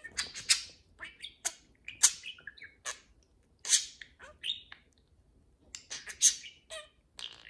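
Budgerigars chattering to each other: a quick string of short, high chirps and scratchy warbles, with sharper, louder calls about two, four and six seconds in.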